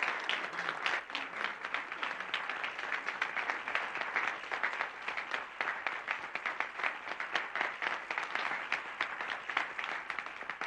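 Ballroom crowd applauding steadily, many hands clapping at once.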